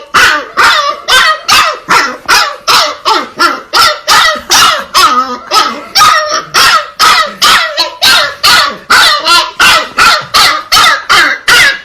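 A puppy barking over and over in a quick, steady series of high yappy barks, about three a second.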